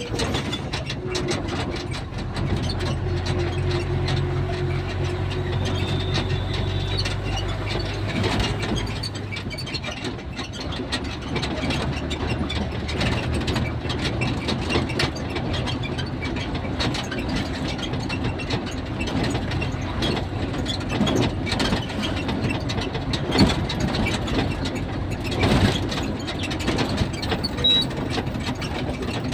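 A vehicle's engine running under a constant rattle and clatter of loose parts. The low engine hum drops away about nine seconds in, leaving mostly the rattling.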